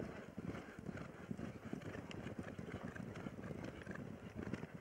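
Polo ponies galloping over grass turf: a dull, irregular drumming of many hooves, with a few faint sharp clicks.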